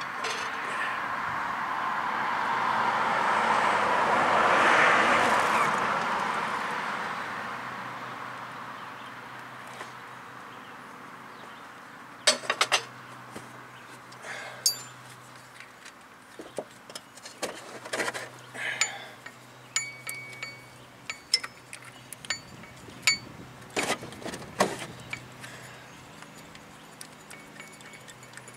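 Hydraulic jack under the engine hissing as its release valve lets the motor down a little, swelling and then fading over the first ten seconds. After that, scattered metallic clinks and clicks of tools and bolts.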